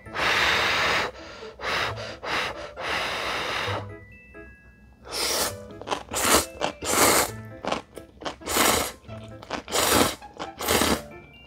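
A person slurping mouthfuls of spicy instant ramen noodles in loud, noisy rushes. Two long slurps come near the start and about three seconds in, then a quicker run of shorter slurps follows. Soft background music plays underneath.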